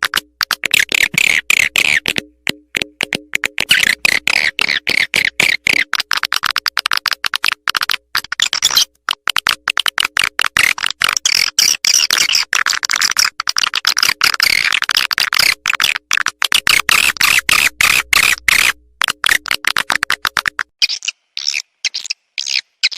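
Swiftlet lure call: rapid, dense twittering chirps and clicks of swiftlets, played as a calling sound to draw the birds in, with faint steady low tones beneath. About 21 seconds in the low tones stop and the chirps thin out.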